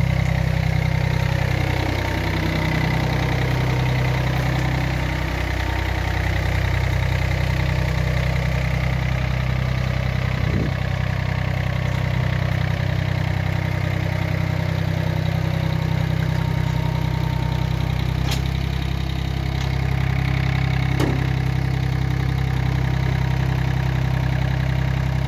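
Yanmar F-7 compact tractor's diesel engine running steadily as the tractor is driven slowly, its pitch dipping briefly twice in the first few seconds.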